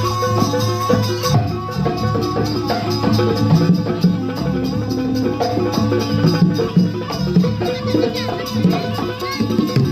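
Live jaranan ensemble music: busy, steady drumming and percussion under held pitched tones, played without pause.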